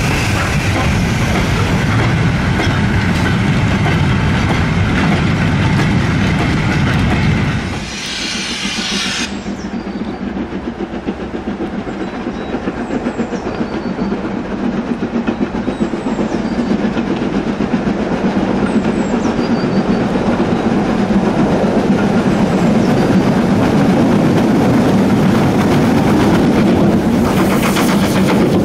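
A freight train of goods vans rolling past close by with a steady rattling rumble of wheels, cut off about eight seconds in. Then LMS Stanier Black Five 4-6-0 45305 approaches under steam, its exhaust growing steadily louder. Near the end comes a loud rush of steam as it passes beneath.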